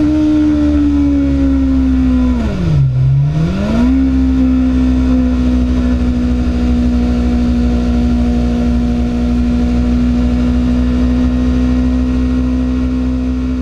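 BMW S1000RR's inline-four engine running under way; about two and a half seconds in its note drops sharply and climbs back within about a second, then holds steady at a slightly lower pitch than at the start.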